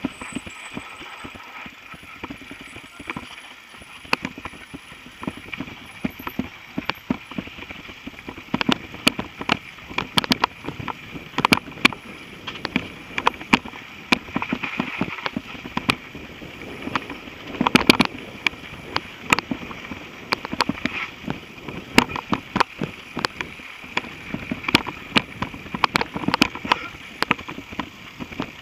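Mountain bike rattling over a rough dirt trail: irregular sharp clicks and knocks, several a second, over a steady hiss.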